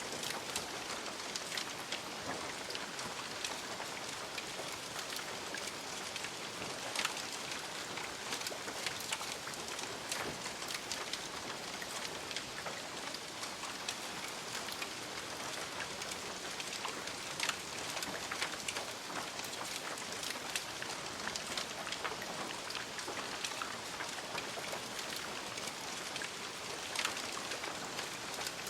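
Smouldering embers after a fire, crackling and hissing: a steady hiss dotted with many small pops and ticks.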